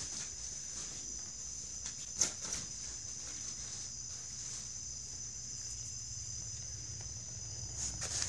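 Soft taps and rustles as a cat moves across a hardwood floor and crawls into a nylon pop-up cat tunnel, the sharpest tap about two seconds in. A steady high-pitched hiss sits underneath.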